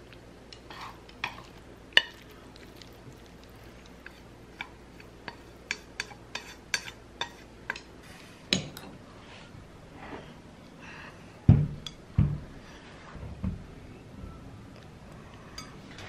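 Wooden chopsticks clicking and tapping against a ceramic bowl while mixing noodles, over a low steady hum. After about eight seconds the hum stops and a few dull thuds follow as dishes are set down on a placemat-covered table.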